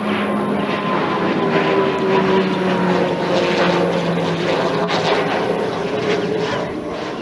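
Aircraft engine passing, its steady tone slowly dropping in pitch.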